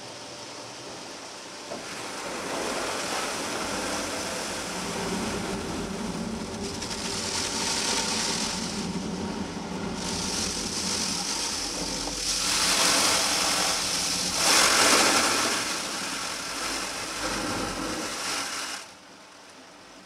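Rotating polyethylene brushes of a Christ rollover car wash scrubbing over the car amid spraying water, heard from inside the car as a rushing, swishing wash. It builds a couple of seconds in, is loudest in two surges in the second half, and drops away sharply near the end.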